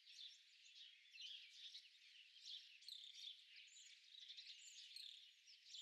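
Faint birds chirping and twittering, a steady stream of short, quick high calls.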